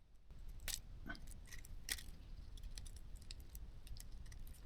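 Faint, irregular clicks and light taps of small hand tools against the drone's plastic housing and cables, as glued cables are worked loose.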